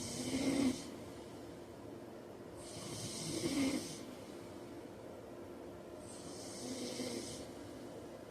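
A man snoring: three snores about three seconds apart, each a breathy rasp that swells into a louder, deeper rumble near its end. The first two are the loudest.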